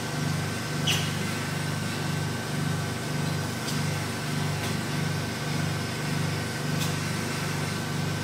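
Vacuum RF roller body-contouring machine running: a steady low hum from its vacuum pump that pulses about twice a second, with a thin steady high tone above it. A few faint clicks, the most noticeable about a second in.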